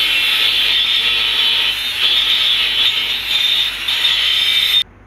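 Angle grinder grinding into a square metal tube frame, a steady high grinding noise that eases briefly twice and stops suddenly near the end.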